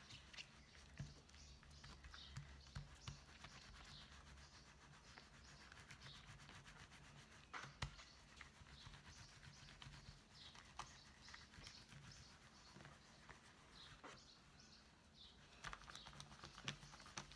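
Near silence: faint wet rubbing of hands working a soapy wet-felted wool pouch, with a few soft clicks and faint high chirps in the background.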